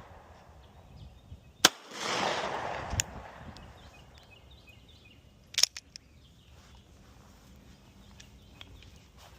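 SIG P365X pistol fired twice, about four seconds apart, each shot a sharp crack. The first is followed by a rolling echo lasting about a second and a half. A fainter sharp crack falls between the two shots.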